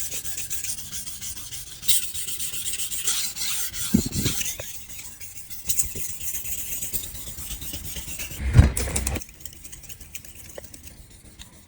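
Kitchen knife being sharpened: the steel blade rasps against an abrasive sharpening surface. A low thump comes about eight and a half seconds in, and the rasping is quieter after it.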